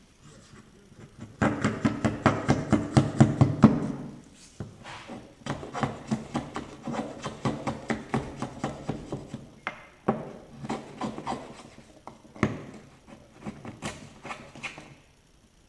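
Two-part epoxy being stirred with a thin wooden stick in a mixing pot: quick rhythmic scraping and tapping of the stick against the pot, about six strokes a second, in several runs with short pauses between.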